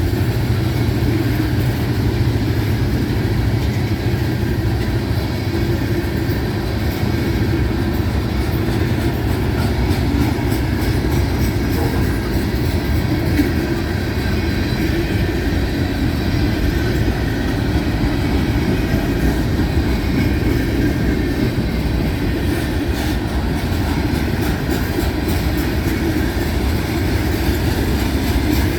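Loaded rock hopper cars of a Florida East Coast Railway freight train rolling past steadily, a continuous low rumble of wheels on rail.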